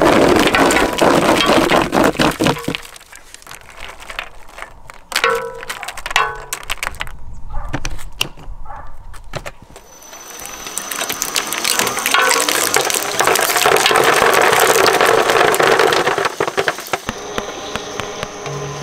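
Shredder crunching through a plastic toy: dense cracking and snapping, thinning to scattered cracks for several seconds in the middle, then a long loud stretch of grinding and crackling.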